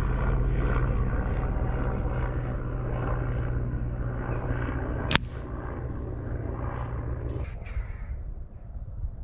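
A single sharp crack of a PCP air rifle shot about five seconds in, heard over a steady background noise with a low hum that falls away shortly after.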